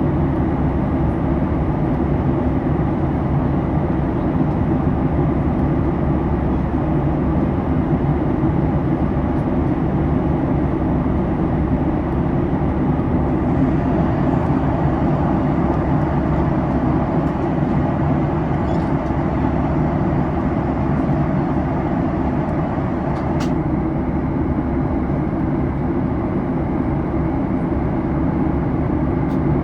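Steady drone inside the cabin of a Boeing 737 MAX airliner: the noise of its engines and airflow, even and unbroken, with a couple of faint ticks.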